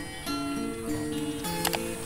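Background music of plucked-string notes, with a short click about three quarters of the way through.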